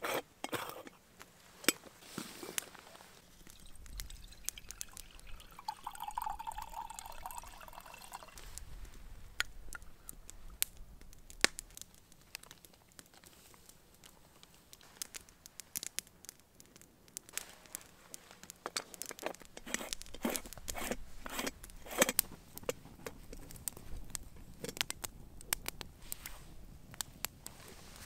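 Light metallic clinks and knocks as an aluminium stovetop moka pot is filled and screwed together, with water poured into it for a couple of seconds about six seconds in. In the second half come the irregular snaps and crackle of a wood campfire.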